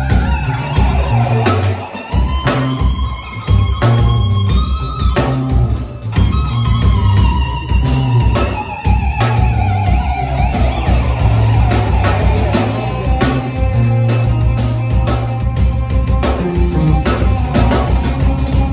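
Live band playing: a fiddle with long sliding notes over guitar, drums and steady low notes.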